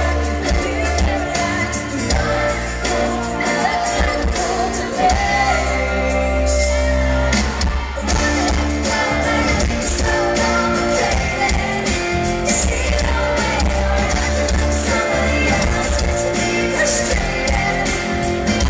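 Live pop-rock band playing with a female lead singer, heard from the crowd, with heavy bass.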